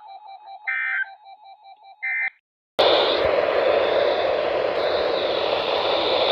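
Two short screeching Emergency Alert System data bursts from NOAA Weather Radio, about a second and a half apart, over a faint fast-pulsing tone: the end-of-message code closing the severe thunderstorm watch. The audio cuts out just after two seconds and gives way to loud, steady radio static hiss.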